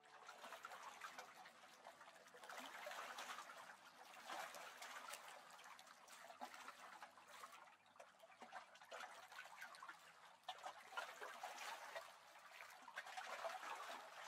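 Faint outdoor ambience of water trickling and lapping, a soft, even, crackly hiss.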